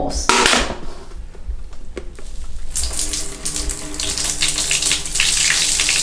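Rinse water being poured out of a portable folding washing machine's tub into a bathtub. A brief rush of water just after the start, then steady pouring and splashing from about three seconds in.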